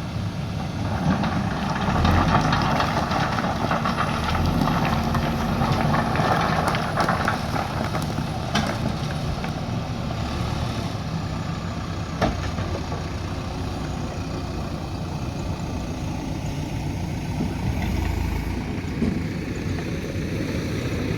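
Diesel engine of a JCB backhoe loader running steadily. It works harder for the first several seconds, then settles. Two sharp knocks come about 9 and 12 seconds in.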